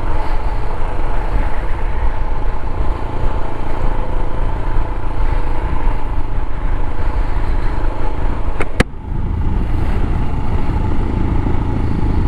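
Royal Enfield Himalayan's single-cylinder engine running steadily while the motorcycle is ridden. A sharp click comes about nine seconds in, and the engine sound dips briefly just after it.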